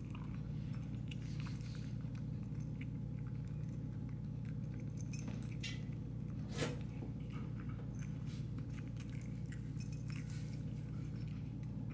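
A cat eating from a ceramic bowl: soft chewing with scattered small clicks of teeth and food against the dish, one sharper click about halfway through, over a steady low hum.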